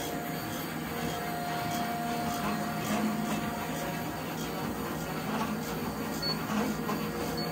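2006 Shiki FX15 five-colour rotary offset printing press running steadily at about 100 shots a minute: a continuous mechanical hum with a faint steady tone and a light, regular ticking a little under twice a second.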